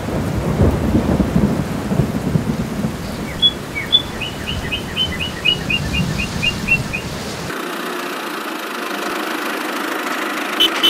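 Rain and thunder: a steady hiss of rain under a low rolling rumble of thunder, with a bird chirping a quick run of about a dozen short high notes in the middle. The rumble cuts off abruptly about two-thirds of the way through, leaving a steadier hiss.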